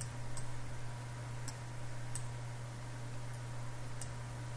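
Computer mouse clicking, about six short clicks spread out, over a steady low hum.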